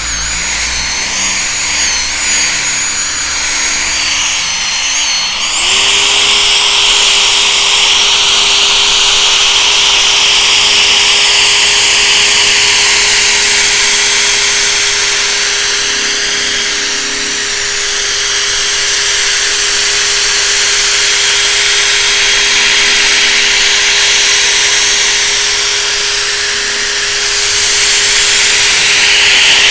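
Electric drill spinning a polishing pad with rubbing compound on a plastic headlight lens. It runs slowly at first, then speeds up about five and a half seconds in to a louder, steady whine.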